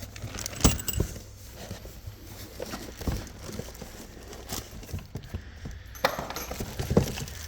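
Scattered light clicks and knocks of boxed parts and packaging being handled, with a denser rustling stretch about six seconds in.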